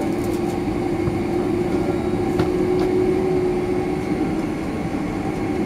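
Boeing 767-300ER cabin noise while taxiing: a steady rumble with a constant hum from the engines at low thrust and the cabin air, heard from inside the cabin. A faint tick about halfway through.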